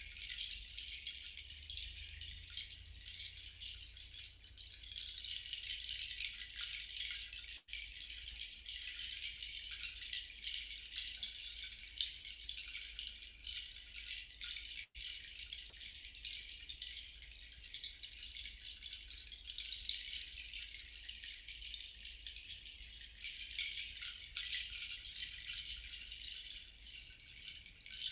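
A hand rattle or shaker shaken continuously in a steady, swishing wash, played as part of a sound healing bath.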